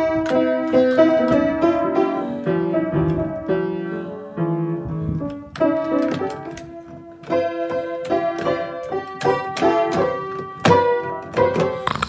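Piano being played: a string of single notes and chords struck in an uneven, amateurish tune, each note ringing on, with a short lull about five seconds in.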